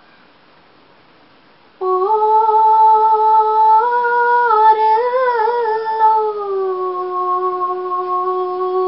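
A woman's unaccompanied voice singing a Limbu hakpare samlo: about two seconds in she starts one long held note, which wavers in pitch around the middle and is then held steady.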